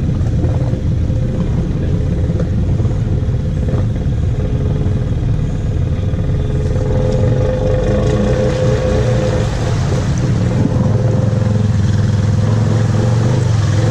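An ATV engine running steadily as the quad wades slowly through creek water, its hum even throughout, with water churning around the machine.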